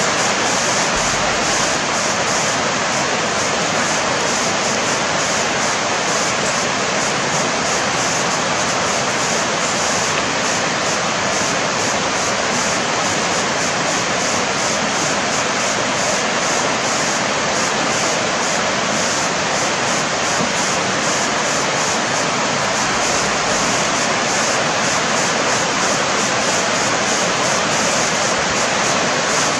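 Steady rushing of flowing water, an even, unbroken hiss that does not change.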